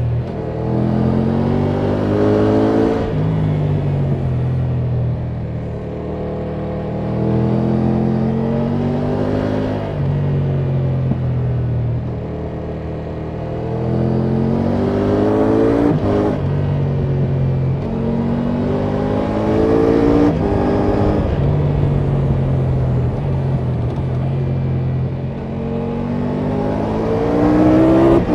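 2024 Triumph Tiger 1200 GT Pro's inline three-cylinder engine through its stock exhaust, under way: the revs climb and fall back about six times as the bike accelerates and eases off, over a steady rush of wind and road noise.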